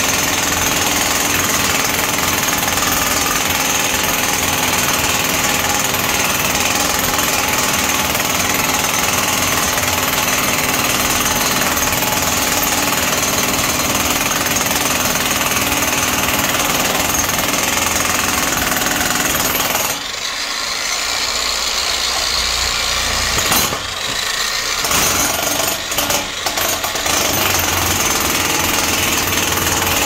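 Jackhammer running steadily as it breaks up floor tiles and the mortar bed beneath them. It stops for a few seconds about two-thirds of the way through, cuts in and out briefly a few times, then runs steadily again.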